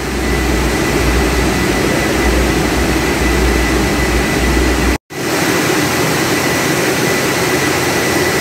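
Machinery of a gas-heated french-fries production line running with loud, steady noise and a thin steady high tone. The sound cuts out for an instant about five seconds in, and the deep hum is gone after it.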